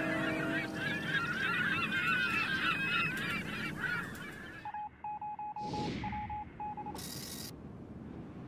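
Harbour ambience of many birds calling in short, wavy, honking cries over a low background rumble, with a steady low tone that stops within the first second. About halfway through it gives way to electronic interface sound effects: a run of short beeps, a swoosh and a brief burst of static.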